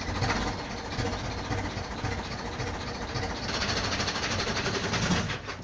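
Zetor 6245 tractor's four-cylinder diesel engine running, with a steady low beat, speeding up somewhat about halfway through.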